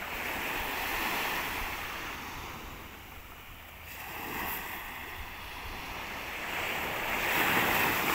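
Small sea waves breaking and washing up a pebble beach, swelling twice, the second wash louder near the end.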